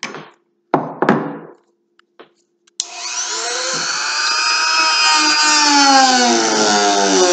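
A few short handling knocks, then about three seconds in an electric power tool switches on with a click and runs on as a steady whine that sinks slowly in pitch. It is being used to sand rust off an old hammer.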